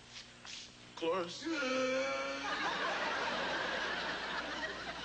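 A studio audience laughing, starting about halfway through and carrying on steadily, just after a man's drawn-out spoken word.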